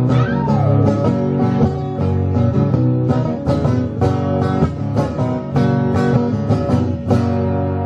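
Acoustic guitar strummed in a steady country-style rhythm, an instrumental break in the song.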